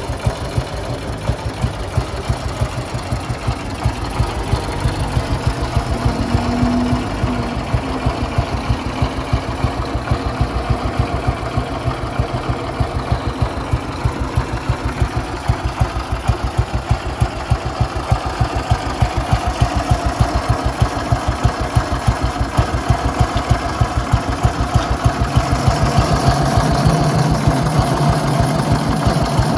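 1957 Ariel NH350's 350 cc single-cylinder four-stroke engine idling steadily with an even, thudding beat, a little louder near the end.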